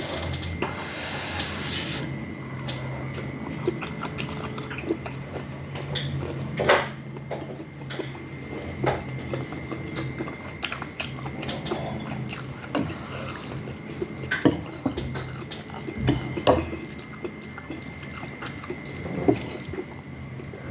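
Eating noodle soup: slurping broth and noodles, with utensils clicking against the bowl at irregular moments.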